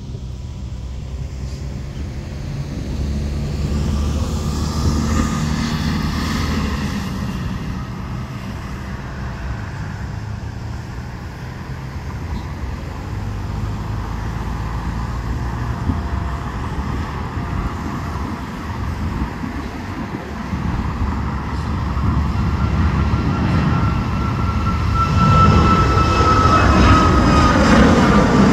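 Road traffic passing, then a Boeing 737-8 MAX's CFM LEAP-1B jet engines at takeoff thrust growing steadily louder as the airliner climbs out overhead. A high engine whine comes in over the rumble in the last few seconds and dips slightly in pitch as the jet passes.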